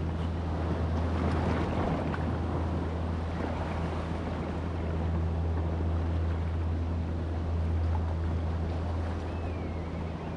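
Steady low hum with a hiss of wind and surf over it. A short gliding chirp near the end.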